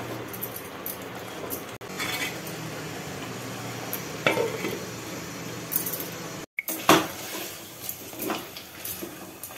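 A wooden spatula scraping and knocking against a clay cooking pot as a thick mutton curry is stirred, with a lid clattering on the pot. Scattered knocks and scrapes; the loudest is a sharp knock about seven seconds in.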